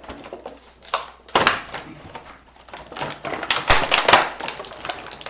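Toy packaging rustling and clicking in irregular bursts as small toy parts are pried and pulled loose from it, loudest about a second in and again around four seconds.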